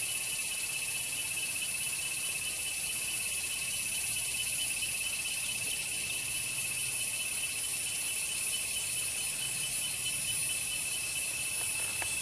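Insect chorus trilling steadily and without pause, one shrill tone and one very high one held throughout.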